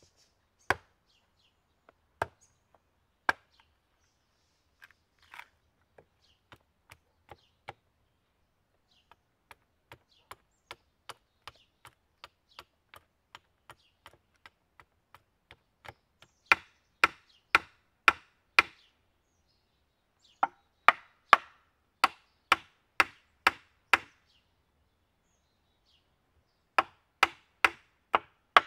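Hatchet striking wood on a chopping block, splitting a short log and then tapping down a thin stick to split and shape wooden pegs: sharp knocks, three loud ones at first, then a run of lighter taps, then runs of loud strikes about two a second. Near the end, after a short pause, a quick run of knocks as a wooden peg is driven into a drilled hole in a log.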